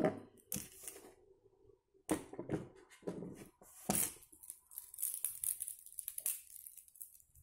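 Handling noise: small glass gel polish bottles knocked down onto a tabletop in a few short clicks, then a few seconds of rustling and crinkling as more items are searched through.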